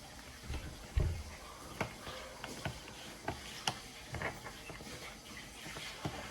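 Irregular light clicks and knocks of a screwdriver and small screws being handled on a laptop's plastic case, as the bottom-cover screws are taken out. The knock about a second in is the loudest.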